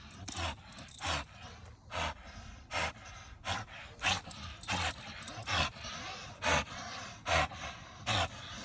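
American bully dog breathing hard, short heavy breaths about one a second.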